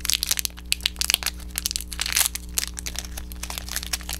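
Crinkly packaging of a Shopkins mystery pack being handled and opened by hand, with irregular crackles and crinkles.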